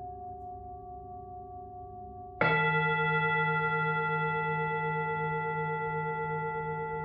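A singing bowl's tones fade as they ring out. About two and a half seconds in, a deeper-sounding singing bowl is struck, and its overtones ring on with a slight slow wavering as they gradually die away.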